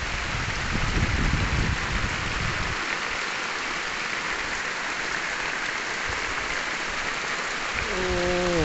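Rain falling on open reservoir water, a steady hiss of drops hitting the surface. A low rumble sits under it for the first few seconds, and a short held pitched sound that drops in pitch comes near the end.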